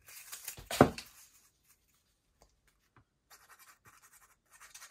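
Cardstock and paper being handled and slid over a cutting mat: scratchy rustling, then one sharp knock about a second in, a near-quiet stretch with a few small ticks, and more rustling of paper near the end.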